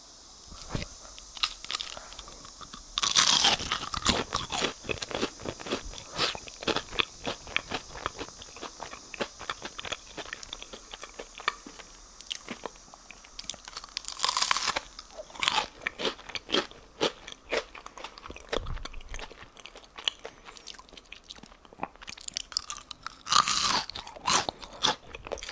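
Crisp twice-fried sweet potato tempura being bitten and chewed close to the microphone. There are three loud crunching bites, about three seconds in, around the middle and near the end, with dense crackling chews between them.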